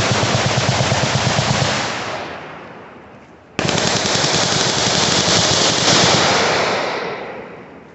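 Machine-gun fire in long sustained strings of rapid shots. The first string fades out by about three seconds in, and a second starts suddenly about a second later, then fades near the end.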